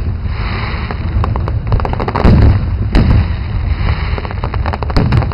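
Aerial firework shells bursting in a display: deep booms over a rapid crackle of small pops. The heaviest bangs come a little past two seconds and at about three seconds in.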